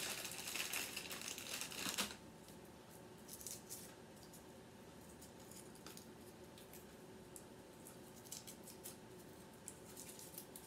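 Crinkly candy bag rustling for about two seconds as a hand digs into it, then faint, scattered crinkles of foil being peeled off a Hershey's Kiss.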